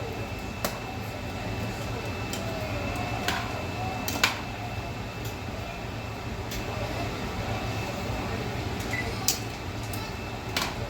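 Steady whirr of a kitchen range-hood exhaust fan with a faint high thin tone, broken by a few sharp clicks and knocks of cookware on the stove.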